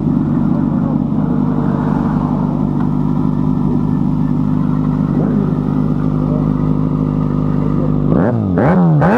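Kawasaki ZX-6R's inline-four idling steadily through an aftermarket slip-on exhaust, then revved sharply near the end, the pitch climbing and dropping in quick throttle blips.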